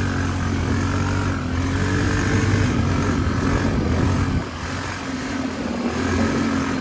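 ATV engine running under way on an off-road trail, a steady engine note that eases off about four and a half seconds in and picks up again shortly after.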